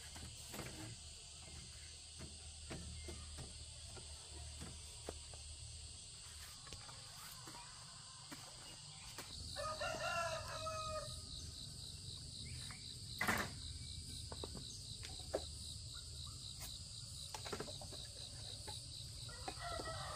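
A rooster crows about halfway through and starts crowing again near the end, over a steady high insect drone. There is one sharp knock a few seconds after the first crow.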